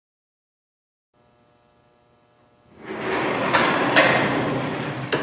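Casters rolling across a concrete shop floor, a loud rough rumble that starts a little over halfway through, with a couple of sharp knocks.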